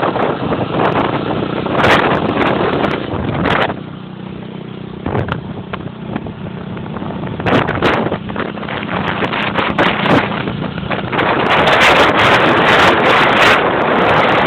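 Wind rushing over the microphone of a vehicle moving at speed, with a low steady engine hum under it. The rush drops for a couple of seconds about four seconds in, then builds again and is loudest near the end.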